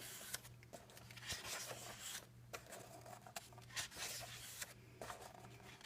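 Faint, irregular rustling and scraping of paper as the pages of a glue-bound coloring book are handled and turned, over a low steady hum.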